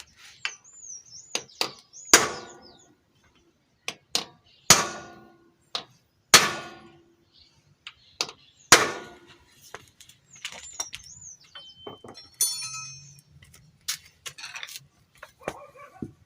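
A series of sharp metallic blows, several seconds apart, struck on the seized Phillips screws of a 110 cc motorcycle engine's side cover to loosen them. Birds chirp faintly in the background.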